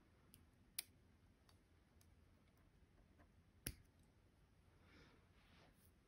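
Near silence: room tone with two faint sharp clicks, about a second in and again about three seconds later, and a faint soft rustle near the end.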